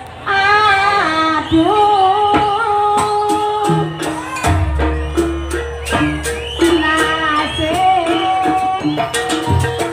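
Live jaranan ensemble music: a held, wavering melody line over drum strokes and sharp percussion, with a deep low tone about halfway through.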